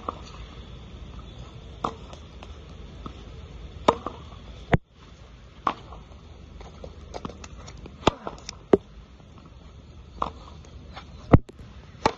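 Tennis ball struck with a racket and rebounding off a practice backboard on a wet court: sharp single smacks at irregular intervals of a second or two, the loudest one near the end.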